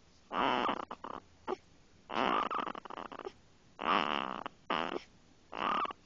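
One-month-old baby snoring: four snores at a steady pace, about one every second and a half to two seconds, each lasting half a second to a second, with a short extra snort near the end.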